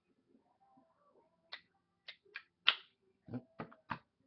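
Plastic makeup cases and compacts being handled and set down: a run of sharp clicks and knocks, the loudest about two-thirds of a second into the second half, then a quick cluster of three or four duller knocks near the end.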